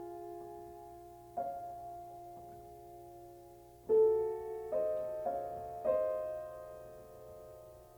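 Slow instrumental background music: piano chords struck a few at a time and left to ring out and fade.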